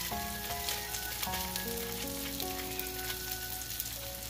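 Vegetable fritters shallow-frying in oil in a cast-iron skillet, next to a stir-fry in a second skillet: a steady sizzle with fine crackles. Soft background music with held, changing chords plays underneath.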